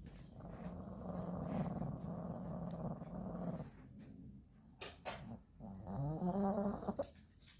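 Dog growling: a long low grumble lasting about three seconds, then a couple of sharp clicks, then a shorter growl that rises and falls in pitch near the end.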